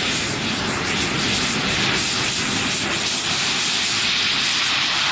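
Large radio-controlled model sailplane's onboard engine running at full power as it takes off, a steady rushing sound that grows stronger near the end.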